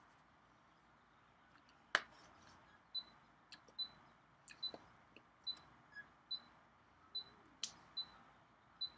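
Irregular light clicks and taps from hands striking together while signing, about a dozen, most with a brief high ring; the loudest comes about two seconds in.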